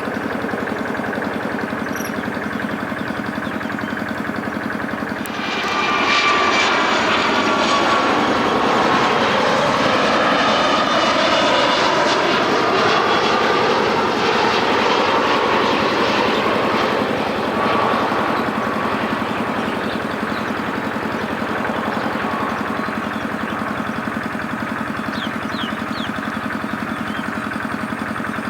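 Jet airliner passing low on landing approach: a loud rush of engine noise with whining tones that slide down in pitch as it goes by, fading to a steadier noise after the middle. A steady low engine hum is there before it arrives.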